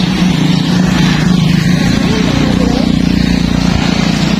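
A motor vehicle's engine running steadily with a low hum, under a haze of road and wind noise.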